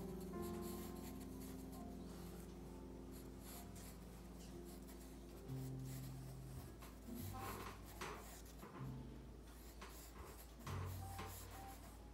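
Conté sepia pencil scratching across drawing paper in short strokes, a few louder strokes in the second half, over soft background music with held low notes.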